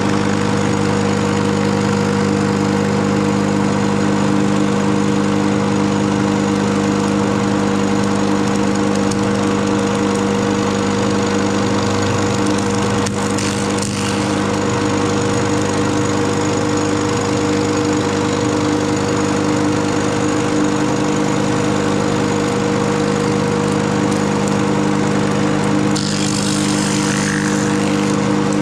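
Lucas model 41 horizontal boring mill running steadily, its spindle-mounted cutter milling the edge of a plywood disc: a constant machine hum under the noise of wood being cut. Near the end the cutting turns harsher and hissier for about a second and a half.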